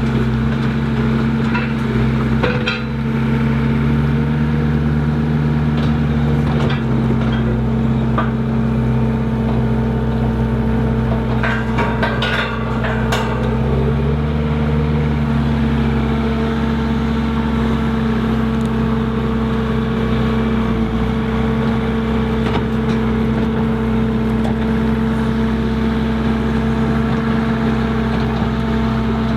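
Skid steer engine running steadily under load, its pitch rising briefly twice, with short clanks and rattles from the skeleton bucket at work.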